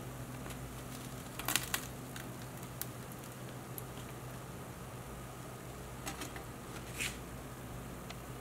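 Wooden chopsticks clicking and scraping against crisp air-fried tofu and the air fryer's nonstick basket, a few light taps about a second and a half in and again near the end, over a steady low hum.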